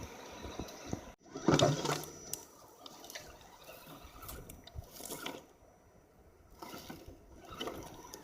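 Water splashing and washing in short bursts. The loudest comes about a second and a half in, with quieter ones around five and seven seconds.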